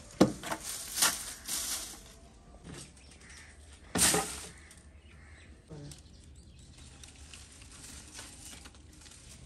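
Dry palm fronds rustling and crackling as they are crammed into an earthen pit stove, in a few quick bursts. A single loud knock comes about four seconds in.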